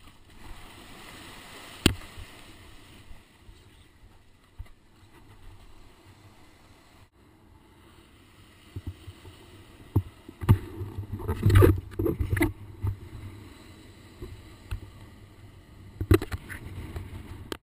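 Wind rumbling on an action camera's microphone in its waterproof housing, with a soft wash of shore-break foam at first. Several sharp knocks come as the camera housing is handled, loudest in a cluster past the middle and again near the end.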